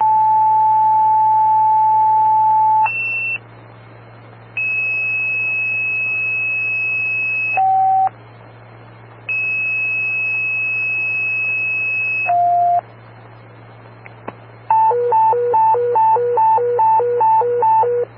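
Fire dispatch tone-out over a scanner radio. Two-tone paging tones play in sets: each is one steady tone with a brief tone of a different pitch beside it, and they repeat with hissing radio gaps between. Near the end comes a fast high-low alternating alert tone, about two and a half swaps a second, over a steady low hum.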